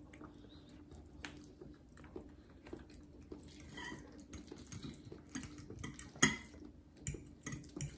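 Forks tapping and scraping on plates during a meal: a few light, scattered clicks, the loudest a little past six seconds in, over a faint low steady hum.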